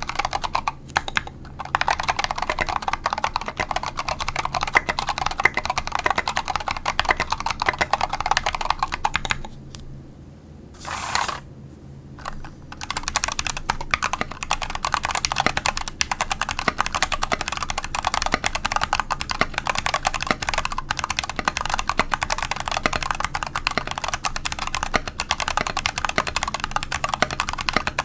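Continuous fast typing on a mechanical keyboard with Polaris gray 62g switches in an aluminum case and plate. The first part is on SA-profile ABS keycaps. After a pause of about three seconds, broken by one short noise, the typing resumes on OEM-profile PBT keycaps.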